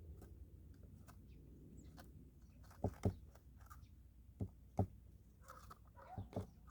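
Pet birds pecking at food: scattered light clicks with three pairs of sharper knocks.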